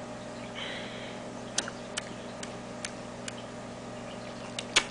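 A baby chewing with an empty mouth, making sharp wet mouth clicks and smacks, about two a second, with a louder double click near the end.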